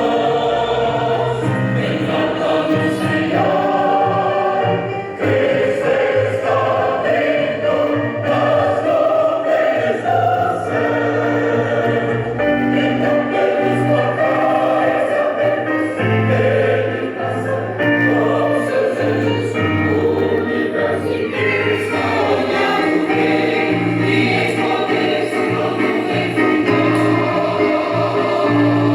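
A choir singing a gospel hymn, with the music continuing without a break.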